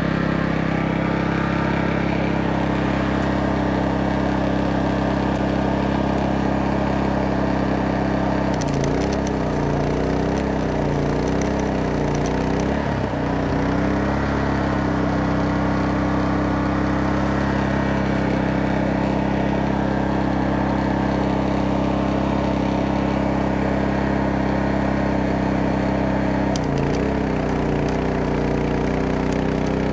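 Petrol generator engine running steadily, loaded by a MIG welder on its maximum settings. Twice, about nine seconds in for some four seconds and again near the end, the welding arc crackles and the engine's pitch wavers and dips as its governor re-regulates under the load.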